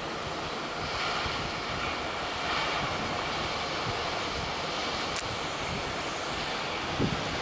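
Sea surf and wind: a steady wash of waves with swells of noise, and wind buffeting the microphone, with a low thump just before the end.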